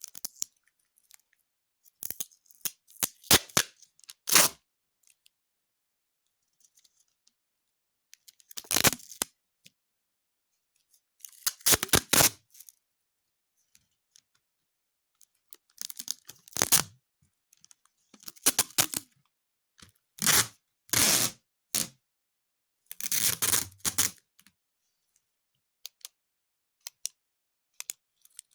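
Scissors snipping in short groups of sharp cuts, about eight groups separated by pauses.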